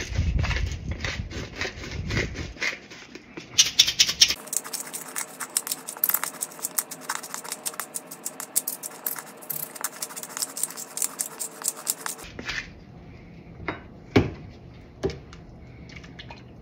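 Hand pepper grinder grinding black peppercorns: a rapid, uneven run of crunching clicks that stops about twelve seconds in. A few single knocks follow.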